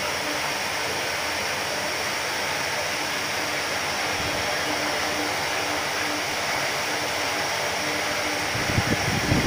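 A steady, even hiss with a faint low hum through it; a louder low rumble starts near the end.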